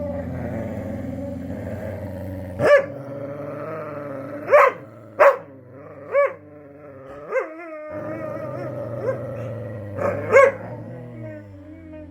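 Dog growling steadily, broken by several sharp barks.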